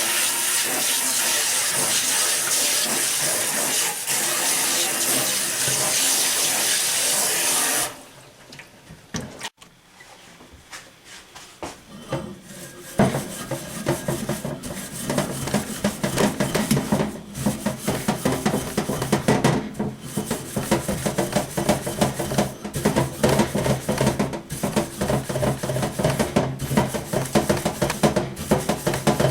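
Water spraying steadily from a sink's shower-type spray head, cutting off abruptly after about eight seconds. After a short lull, a handled metal scrubber scrapes rapidly and unevenly against cookware.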